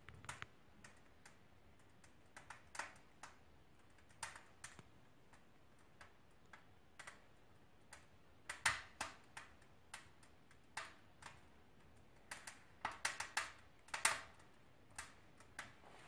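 Wood fire crackling in the firebox of a Nordica Candy wood-burning stove: irregular faint snaps and pops, with a few louder ones about halfway through and again a couple of seconds before the end.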